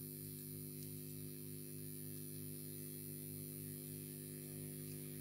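Steady electrical mains hum with a row of overtones, picked up by the recording setup, with a faint steady high-pitched whine above it.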